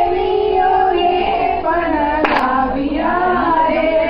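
Women singing a Gujarati garba song, with a pair of quick hand claps a little over two seconds in.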